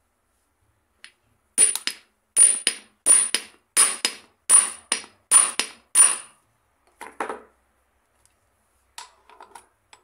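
Hammer striking the end of a steel gear shaft seated in a scooter transmission cover's blind bearing, driving the shaft into wet toilet paper packed behind it so the pressure works the bearing out. Seven sharp metallic blows about 0.7 s apart, each with a quick rebound tap, then a few lighter knocks near the end.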